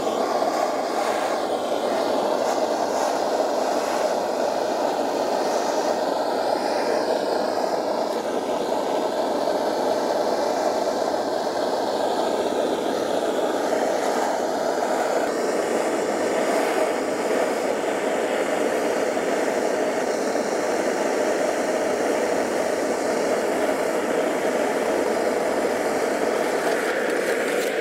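Bernzomatic propane torch flame running steadily, heating a soldered copper pipe elbow to melt the solder joint so the fitting can be pulled off.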